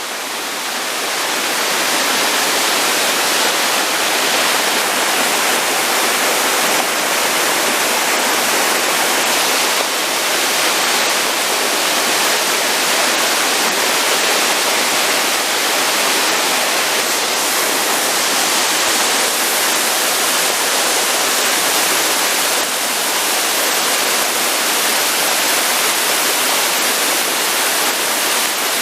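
Mountain stream running: a loud, steady rush of flowing water that swells over the first two seconds and then holds even.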